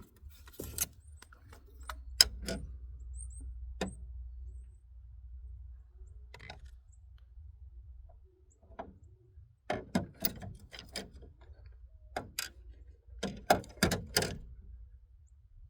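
Metal clicks and knocks of hand tools and parts being handled in an engine bay, in small clusters with pauses between them, during ignition coil and spark plug work.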